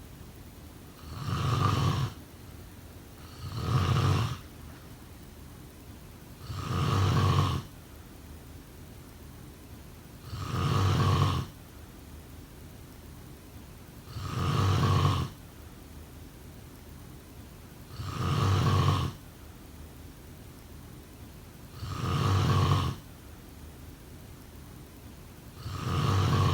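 A sleeping person snoring: eight low, buzzing snores of about a second each, coming every three to four seconds at a steady rhythm.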